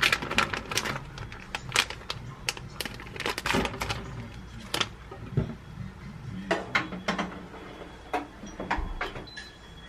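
Plastic wrapper crinkling and rustling as a cookie is unwrapped over a wire air-fryer basket, then metal clatter as the wire basket is slid into a countertop air fryer oven. A short electronic beep near the end.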